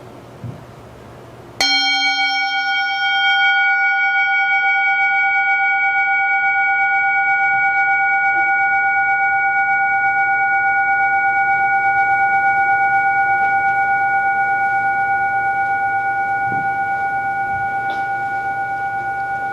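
A singing bowl struck once about a second and a half in, then ringing on with a long, slowly fading tone that wavers gently.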